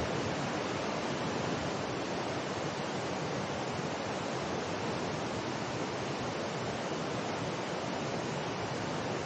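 Mountain river rushing steadily, an even roar of water with no breaks.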